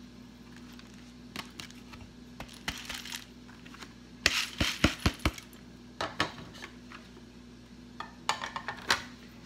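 Soaked sticky rice and peanuts tipped from a plastic colander into a cloth-lined metal steamer: scattered clicks and light clatter, with a quick run of sharp knocks about four to five seconds in. Near the end a metal spoon clinks as it spreads the rice.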